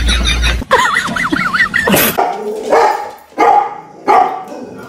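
A dog barks three times, about two-thirds of a second apart, after a stretch of high, wavering whimpering cries.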